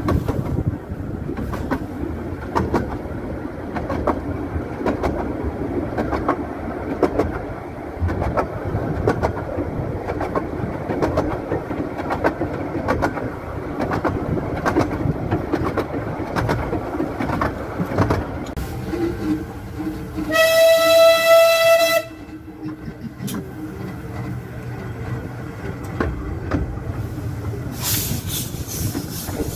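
Narrow-gauge steam train running, heard from the coach, with wheels clicking irregularly over the rail joints. About twenty seconds in, the locomotive No. 1 Wroxham Broad sounds its whistle once, a steady note of under two seconds and the loudest sound here, as the train nears a level crossing.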